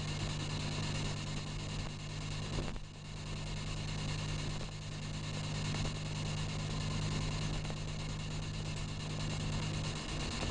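Spirit box radio sweeping through steady static hiss over a low hum, heard inside a moving car. The hum drops away near the end.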